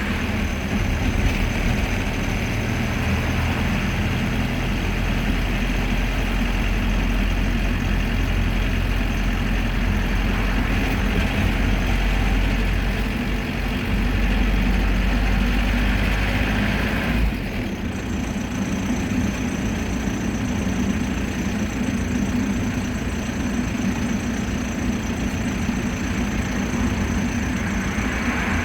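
Mercedes-Benz T1 minibus engine running, heard from inside the cabin. About two-thirds of the way through the deep rumble drops away and a thin, steady high whine comes in.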